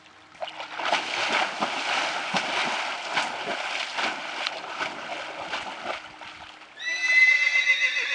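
A horse wading through a shallow creek, its legs splashing and churning the water for about six seconds. Near the end a horse whinnies loudly, a high wavering call.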